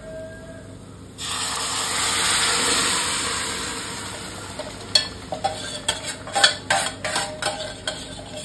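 Cooked dal and sliced onions with their water tipped into hot oil-fried masala in a steel pan, setting off a loud sizzle about a second in that slowly dies away. From about five seconds in, a metal ladle clinks and scrapes against the steel vessels as the mixture is stirred and the bowl is emptied.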